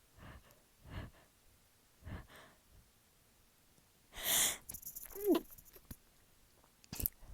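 A woman's hitching breaths through a tickled nose, after snorting sneezing powder, building to one loud sneeze about four seconds in, followed by a short falling vocal sound.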